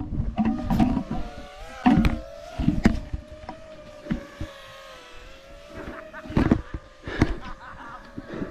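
Camera drone's propellers whining steadily, the pitch wavering a little, over wind buffeting with several sharp thumps.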